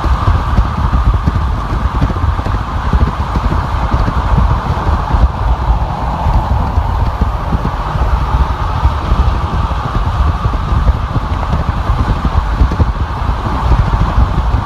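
Steady road noise of a car driving on a freeway: a continuous low rumble with a band of tyre and wind noise above it, unchanging throughout.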